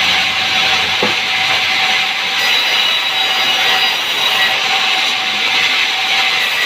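Sawmill saw cutting lengthwise through a log: a steady, loud, hissing rasp of the blade in the wood over a constant machine tone.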